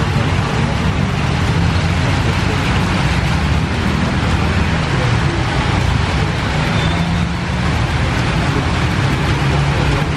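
Steady, loud, low rumble of outdoor background noise like road traffic, with faint voices in it.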